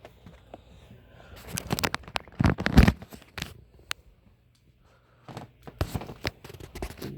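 Handling noise: hard objects clattering, scraping and knocking, with a couple of heavier thumps about two and a half seconds in and a few lighter clicks near the end.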